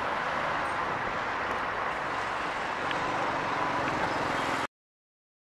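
Distant expressway traffic heard from above: a steady hum of trucks, buses and cars that cuts off suddenly near the end.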